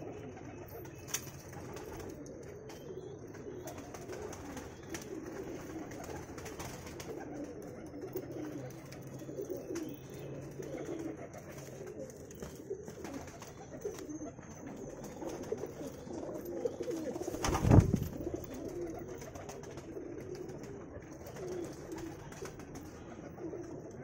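Teddy pigeons cooing, overlapping low coos running on without a break. One sharp loud thump about three-quarters of the way through.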